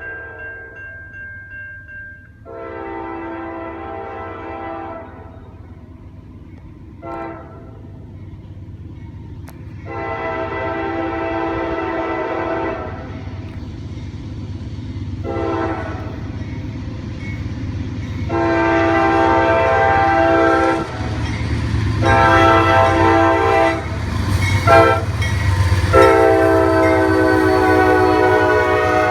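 Leslie K5LA five-chime air horn on a Norfolk Southern GE Dash 9 diesel locomotive blowing a run of about eight long and short blasts. The locomotive's engine rumble grows louder underneath as the train approaches.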